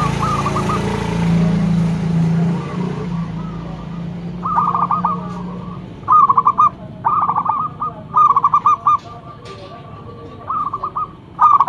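Zebra dove (perkutut) singing: about six short runs of quick, staccato coo notes, one after another with brief gaps. A low hum sits under the first few seconds.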